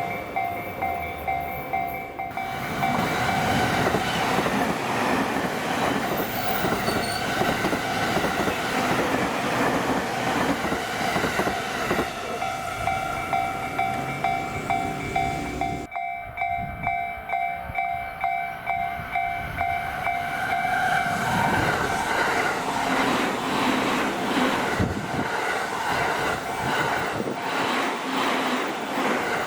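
Level-crossing warning bell ringing over and over while trains pass over the crossing, their wheels clacking over the rail joints.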